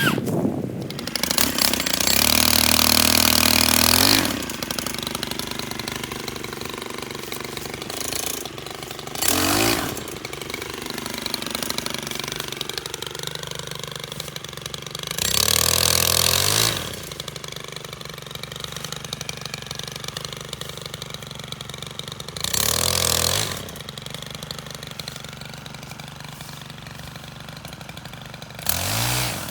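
STIHL KM 131R combi power head with a pole saw attachment, idling and throttled up five times in short bursts of about one to two seconds, as when sawing limbs, dropping back to idle between each. The longest burst is about two seconds in.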